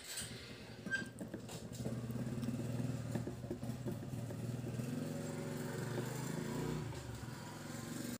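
KUKU K-80/81 portable amplifier speaker playing audio through its loudspeaker, a dense sound with steady low droning tones that comes on abruptly and cuts off abruptly.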